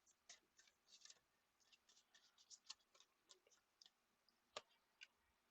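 Faint, irregular clicks and light snaps of tarot cards being handled and shuffled, with a sharper single click about four and a half seconds in.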